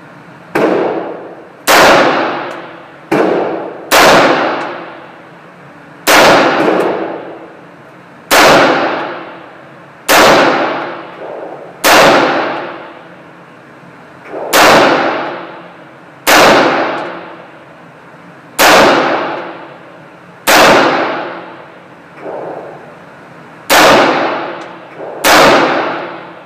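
AR-15 rifle fired in slow single shots, about fifteen in all, spaced one to two and a half seconds apart. Each shot has a ringing, echoing tail, and a few are fainter than the rest.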